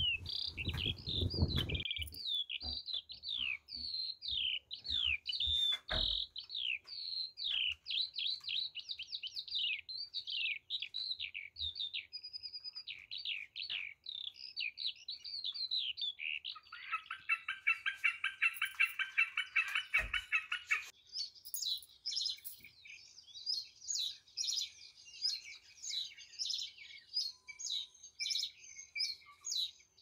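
Small songbirds chirping and singing continuously in rapid high notes, with a buzzy trill lasting about four seconds a little past halfway, then quicker, higher chirps. A brief low rumble at the very start.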